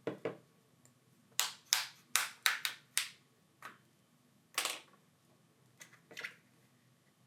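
Plastic back cover of a Samsung Galaxy A03s being pried off its middle frame with a plastic opening tool, its clips letting go in a series of sharp clicks and snaps, about ten in irregular succession.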